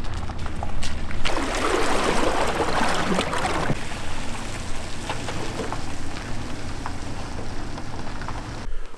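Boat being launched off its trailer at a ramp: water rushing around the hull for a couple of seconds as it floats free, over the steady low hum of an engine running throughout. The sound cuts off abruptly near the end.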